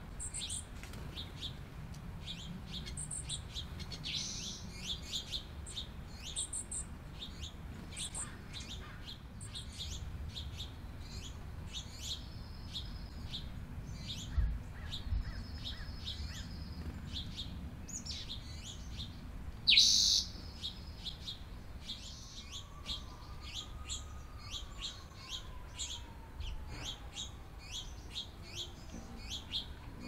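Small songbirds chirping: a steady run of short, high chips, with a louder, sharper call about two-thirds of the way through. Two low thumps come near the middle.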